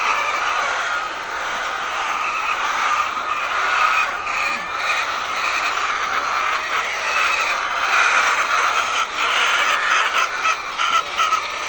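A large flock of laying hens in a poultry shed making a steady, dense din of overlapping clucking, with a few short clicks mixed in.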